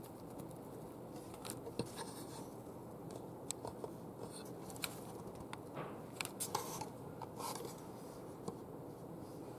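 Rescue cats shifting about on a cushioned table top and chair: soft, irregular scratches and small clicks of claws and paws over a steady low room hum, busiest a little past the middle.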